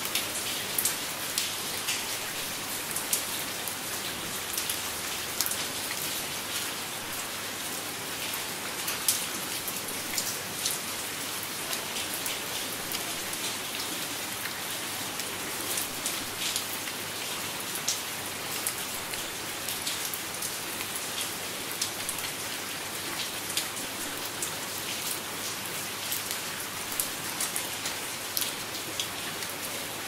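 Light rain falling: a steady hiss dotted with many sharp ticks of single drops landing.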